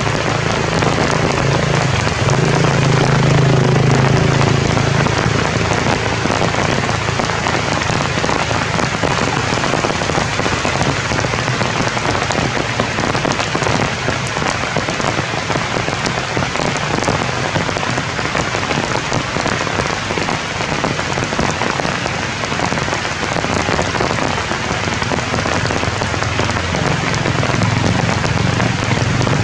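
Steady heavy rain pouring onto forest leaves and branches, an even hiss of countless drops, with a low rumble swelling a few seconds in and again near the end.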